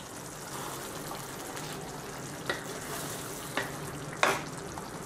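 Thick egg masala gravy sizzling in a pan as coconut milk goes in, stirred with a wooden spatula that knocks against the pan three times in the second half.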